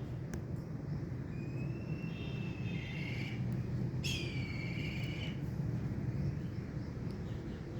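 A bird of prey gives two drawn-out whistling calls, the first about a second and a half in and the second at about four seconds. The second call starts sharply and then falls slightly. A steady low rumble runs underneath.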